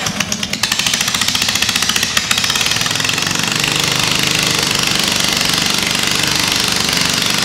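Honda gasoline engine on an engine-driven air compressor starting on its electric starter and coming up to a fast, steady run within a few seconds. It is straight-piped, with no muffler, so the exhaust pulses are deafening.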